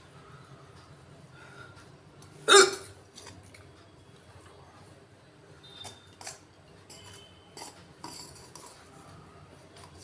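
A person hiccups once, sharp and loud, about two and a half seconds in, followed by a few faint clicks and clinks.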